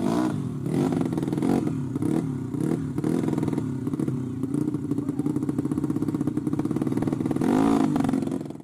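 Dirt bike engines running and revving, with the pitch swooping up and down twice. The sound cuts off suddenly at the very end.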